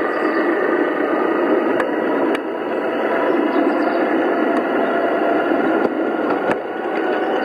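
5-inch gauge miniature railway train running along the track: a steady running noise with faint steady tones over it, and a few sharp clicks now and then.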